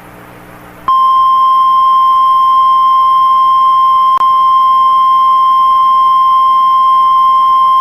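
Weather radio warning alarm tone: a loud, steady single-pitched beep near 1 kHz, the 1050 Hz tone that opens a new National Weather Service warning broadcast. It starts abruptly about a second in, after a faint hum, and holds on, with one brief click near the middle.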